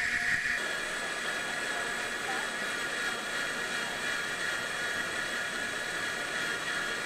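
A small electric motor running with a steady high whine over a hiss. A stronger part of the whine drops away about half a second in.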